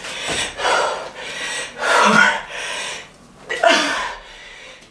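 A woman breathing hard during sumo jump squats: about four loud, gasping exhales in quick succession, with a short lull near the end.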